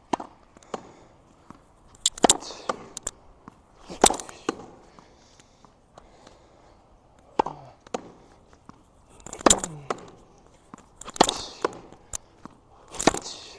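Tennis ball struck with a racket against a practice wall, each backhand hit followed by the ball smacking the wall and bouncing on the wet court, a rally of sharp pops every couple of seconds with quiet scuffs of footwork between.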